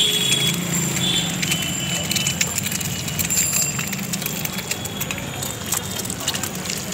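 Eggs frying in a shallow pool of hot oil in a pan, sizzling with many scattered crackles and spatters.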